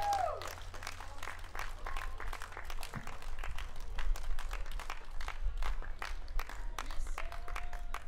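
Scattered hand-clapping from a small audience, the separate claps plainly distinct, as the band's last held note fades out in the first half second.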